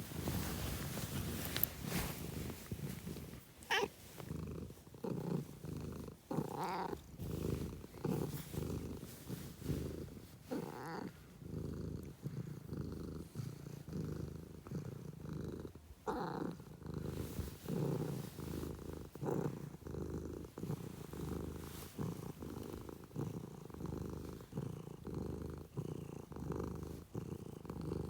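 A domestic cat purring close up, a steady low rumble that swells and fades with each breath, about once a second.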